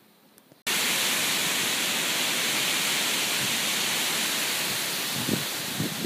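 Wind rushing steadily through trees, starting abruptly about half a second in, with a few low buffets of wind on the microphone near the end.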